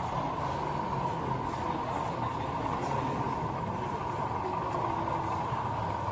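Model train running on an exhibition layout: a steady motor hum with a constant whine, over the hall's background noise.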